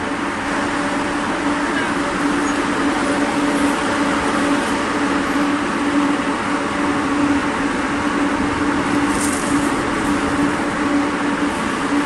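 Automatic mesh-belt ginger dryer running: a steady machine hum with one constant droning tone.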